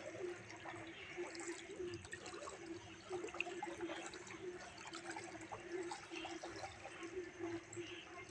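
Floodwater sloshing and lightly splashing as people wade through it, with a steady low hum underneath.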